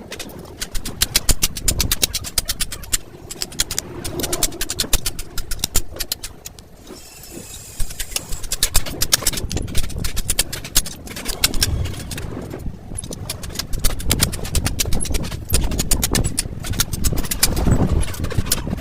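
Rapid, rhythmic metallic knocking in repeated runs of several sharp strokes a second, with short pauses between runs, from tools working on a truck's leaf spring.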